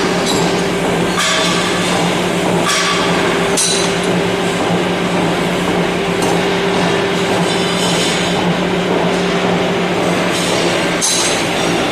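Power hammer running with a steady machine hum, striking now and then with sharp blows at irregular intervals.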